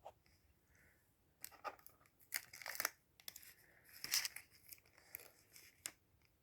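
Plastic packaging being handled: a few seconds of irregular crinkling and crackling, starting about a second and a half in.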